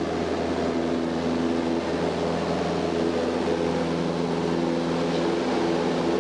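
Light aircraft's piston engine running steadily at high power, heard from inside the cabin during the takeoff run and climb-out close to the ground.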